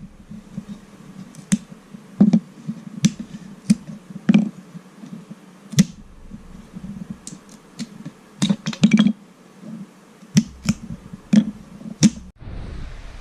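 Small parts being handled: a steel nut and bolt fitted into a 3D-printed plastic clip, giving irregular sharp clicks and taps, with a quick flurry of clicks about two-thirds of the way through.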